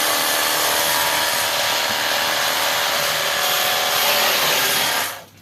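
Ecosen Jet Cleaner portable washer running, its electric pump motor whining steadily under a loud hiss of soapy water spraying through the soap attachment. It cuts off suddenly about five seconds in as the soap spraying is finished.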